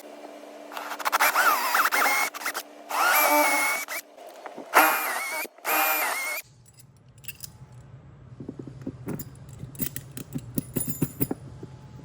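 Power drill run in four short bursts, its whine rising as it spins up, drilling holes through a fiberglass-reinforced plywood boat transom. About halfway through this gives way to a low steady hum with light metallic clicking and rattling.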